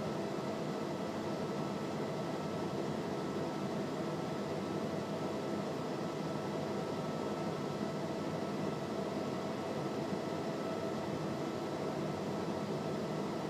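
Steady cabin noise of a Cessna P210R in flight, its engine and the airflow making an even drone inside the cockpit, with a few faint steady tones through it.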